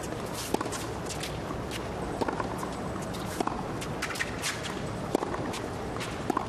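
Tennis rally on a hard court: sharp pops of racket strings hitting the ball and the ball bouncing, about one every second or so, with players' footwork on the court over a low crowd murmur.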